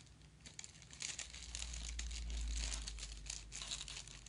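Crinkling of a small clear plastic jewelry bag being handled, a dense run of irregular crackles starting about half a second in, with a low rumble underneath in the middle.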